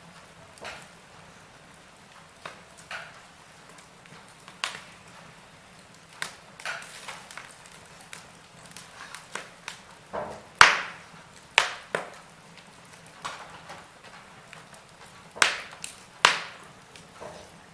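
Wood fire crackling in a fireplace: irregular sharp pops and snaps over a faint steady background. The loudest pops cluster about ten to twelve seconds in and again near the end.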